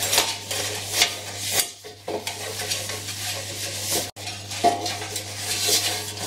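Oiled paper tissue rubbed around the inside of a metal loaf tin: a run of scuffing, wiping strokes, with a sharper knock of the tin now and then.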